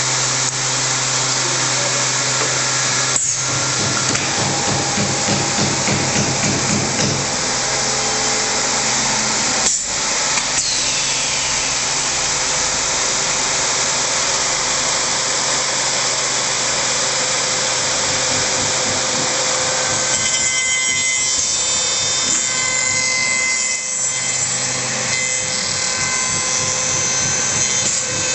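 MX3810B tenoning machine running, its cutters machining wood, with a steady hum under the cutting noise. Two sharp knocks about 3 and 10 seconds in, and a fluttering stretch between about 4 and 7 seconds.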